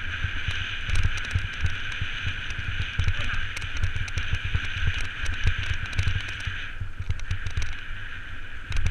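Riding a bike over a rutted dirt and grass track: wind buffeting and trail jolts rumble on the bike-mounted camera's microphone, with a run of light rattling clicks. A steady high hiss drops out about two-thirds of the way through and returns at the end.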